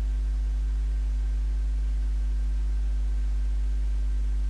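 Steady low mains hum, unchanging, with a few faint higher overtones.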